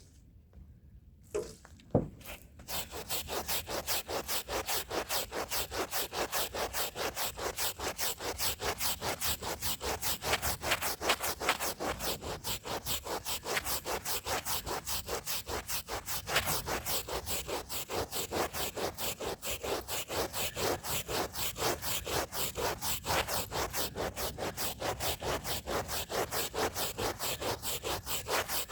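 Stiff hand brush scrubbing a rug's fibres in fast, even back-and-forth strokes that start after a single sharp knock about two seconds in.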